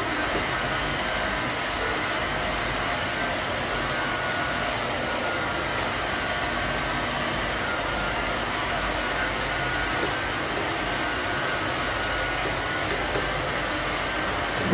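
Steady whooshing of an electric blower, with a few faint clicks of grooming scissors snipping rabbit fur.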